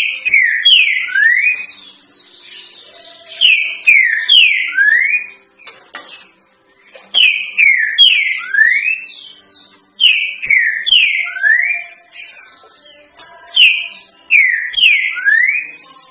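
Green-winged saltator (trinca-ferro) singing the three-note 'boi' song, a tutor song for young birds: five phrases about three and a half seconds apart, each of three loud slurred whistles.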